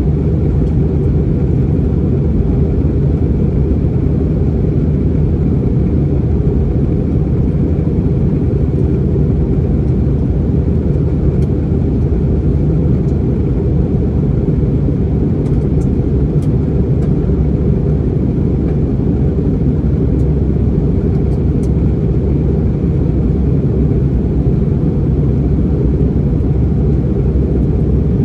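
Steady low rumble inside the cabin of an Airbus A321neo on descent: its Pratt & Whitney PW1100G geared turbofan engines and the airflow over the fuselage, heard from a window seat beside the wing.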